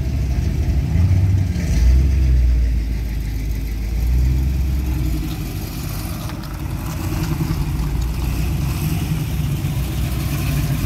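Classic American cars, a Camaro SS V8 among them, rolling slowly past with a low engine rumble that swells for a few seconds about two seconds in as one goes by.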